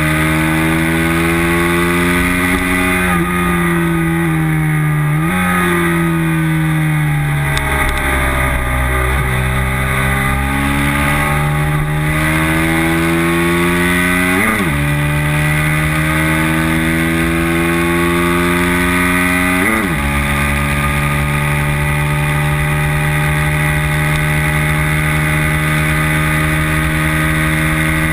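Race motorcycle engine heard from a camera mounted on the bike, running hard at speed. Its pitch falls for several seconds, then climbs and drops sharply at upshifts about fourteen and twenty seconds in, before rising slowly again.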